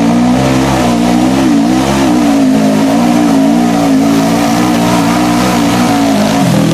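Off-road vehicle's engine running hard at high, fairly steady revs, its pitch wavering slightly. Near the end the revs drop.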